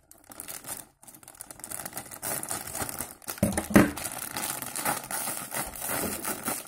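Metallic foil doll wrapper crinkling and tearing as it is pulled open by hand, a dense crackle with many small clicks.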